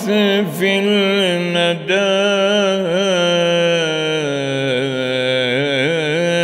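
A man's voice reciting the Quran in Arabic in a slow melodic chant, holding long drawn-out notes that slide and waver in pitch.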